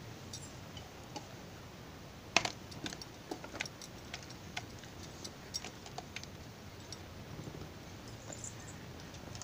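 Scattered light clicks and knocks as ground pea paste is scooped from a mixer-grinder jar into a plastic bowl, the loudest knock about two and a half seconds in.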